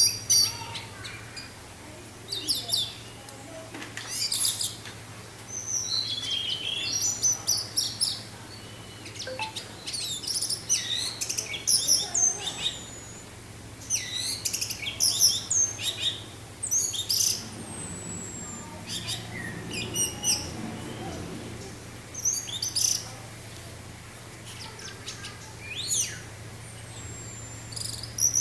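Orange-headed thrush singing in repeated bursts of rapid, high, varied phrases, over a steady low hum.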